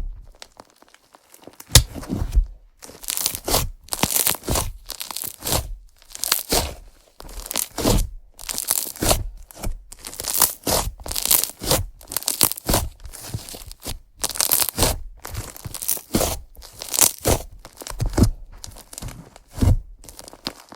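Slime being squished and stretched by hand in a series of short, sticky squishes, about one a second.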